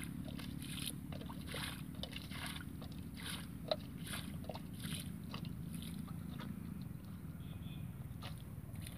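Shallow muddy water sloshing and splashing in many short irregular splashes as hands and a steel plate scoop through it, over a steady low rumble.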